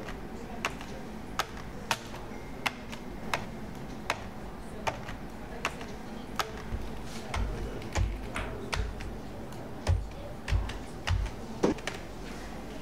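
Single keystrokes on an old computer keyboard: sharp clicks at a slow, even pace, about four every three seconds. In the second half, deep low thumps come in among them.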